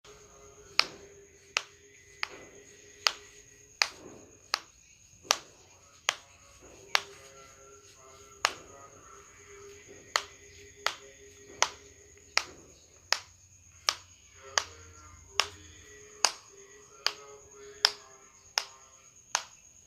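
A steady series of sharp clicks or snaps, about one every three-quarters of a second, with a longer pause near the middle. A faint steady high-pitched tone runs underneath.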